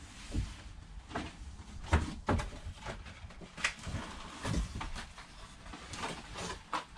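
Irregular knocks, taps and rustles of product boxes and packaging being handled and set down, the sharpest couple of knocks about two seconds in.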